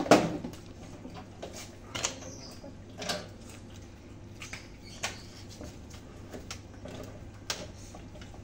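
Irregular knocks and clicks of hands handling the casing and fan grille of an air conditioner's outdoor unit: one sharp knock at the start, then a few lighter taps spread out.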